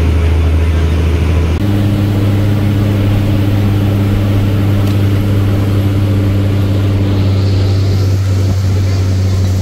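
Steady low drone of a running vehicle engine, likely heard from inside a bus. About a second and a half in it steps to a slightly higher pitch and then holds steady.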